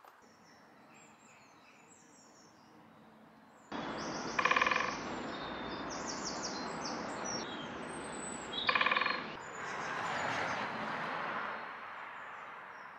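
Birds singing faintly. About a third of the way in the sound jumps abruptly to a steady rushing noise with birdsong over it. This is broken twice, a few seconds apart, by a short steady-pitched call that is the loudest sound.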